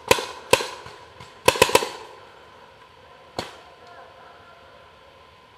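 Paintball marker shots popping: two single shots, a quick burst of three about a second and a half in, and one more shot at about three and a half seconds.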